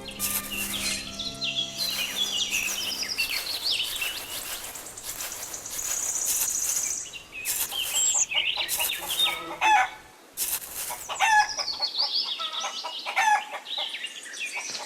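Birds chirping in quick, repeated falling chirps, with scattered short clicks. Held musical notes fade out about three seconds in.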